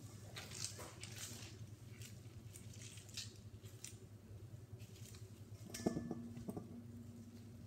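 Gloved hands squeezing and kneading wet slime: faint, irregular sticky squelches and smacks. About six seconds in, a louder knock, with a short ringing tone after it.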